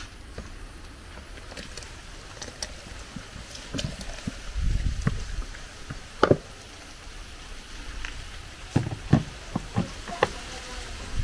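A wooden spoon scraping and knocking against a plastic bowl and blender jug, a few sharp knocks, then the plastic blender jug being set down onto its base with clicks and clunks. Two spells of low rumble run under it.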